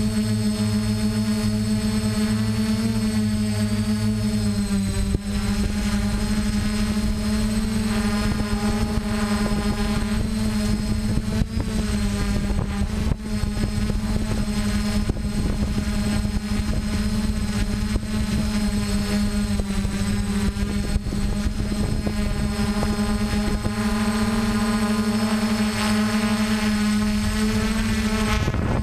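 DJI F450 quadcopter's four electric motors and propellers running with a steady multi-tone whine, heard close up from the camera mounted on the craft. The pitch dips slightly about five seconds in, over a low rumble.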